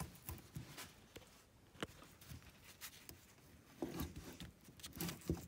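Faint, scattered light clicks and taps of the disassembled EGR valve's metal parts being handled by gloved hands, with a little rustling about four seconds in.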